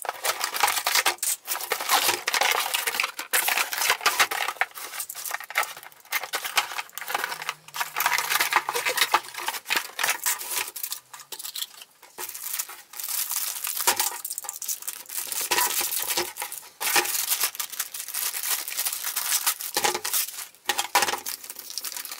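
A toy blaster being unpacked: its cardboard box opened and the plastic bags around the blaster and darts crinkled and torn, with frequent small clicks and knocks as parts are handled on the table.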